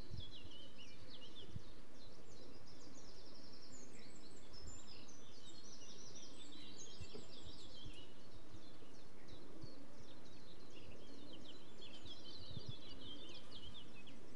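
Small songbirds chirping and trilling in quick high runs over a steady low hum of outdoor background noise.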